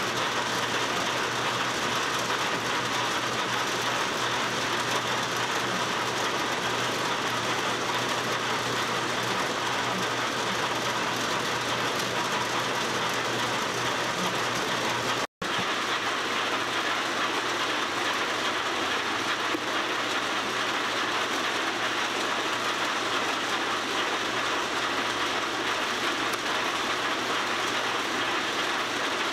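Paint-mixing machinery running with a steady, even mechanical noise, broken by a split-second dropout about halfway through.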